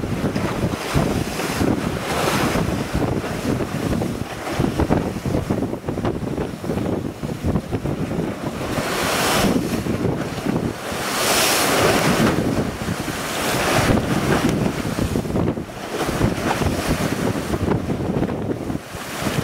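Hurricane wind buffeting the microphone, over rough waves crashing and splashing against a bulkhead. The loudest splashes and gusts come about halfway through.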